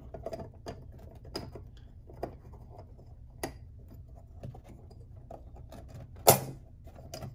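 Small clicks and taps of a golf cart motor's brush holder, brushes and brush springs being handled and taken apart by hand, with one sharper click about six seconds in.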